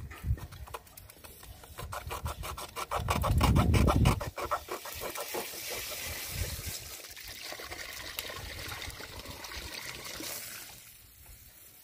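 Mains water spraying and splashing out of a leaking half-inch PVC pipe joint as it is fitted by hand, the water at low pressure. A steady hiss of spray sets in about four seconds in and fades near the end, after a loud low rumble.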